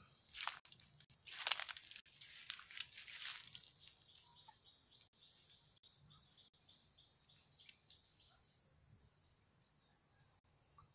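Footsteps crunching through dry leaf litter and brush for the first few seconds, then a faint, steady, high-pitched insect drone that carries on once the crunching stops.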